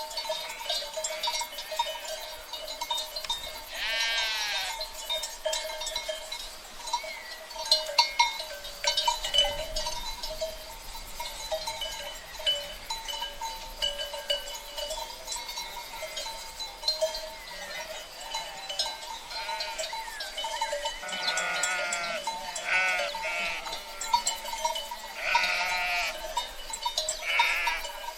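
A flock of sheep bleating: scattered single bleats at first, then several in close succession in the second half, over a steady jangle of bells.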